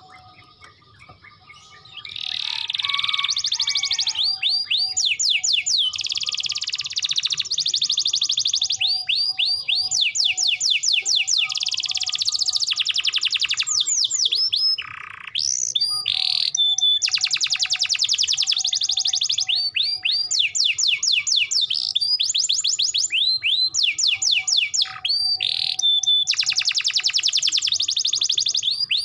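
Domestic canary singing a loud, continuous song of fast repeated trills, starting about two seconds in with a brief pause around the middle.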